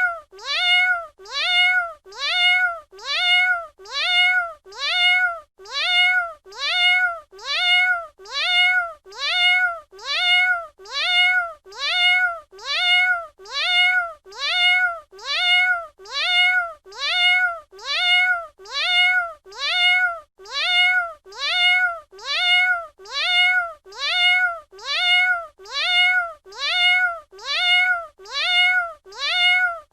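Domestic cat meowing, the same short rising-then-falling meow repeated at an even pace of about once a second.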